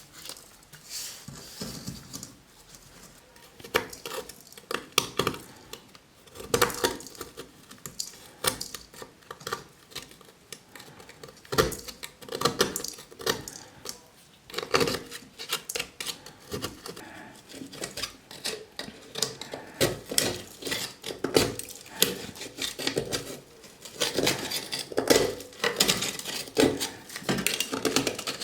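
Irregular metallic clinks, taps and scrapes of hand tools worked against a rusty steel helmet shell.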